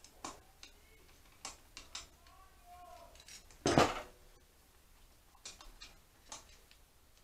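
Screwdriver and small steel screws clinking against the metal of a motorcycle carburettor bank as airbox screws and their retaining clips are fitted. About a dozen sharp metallic clicks and clinks, the loudest a bit under four seconds in.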